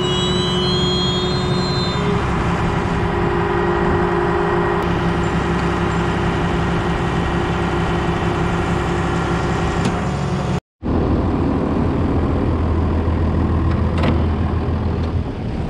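Diesel tractor engine running steadily, heard from the operator's seat while pulling a rotary hay tedder. The sound cuts out briefly about ten and a half seconds in, then an older John Deere tractor's engine runs with a lower, steadier hum.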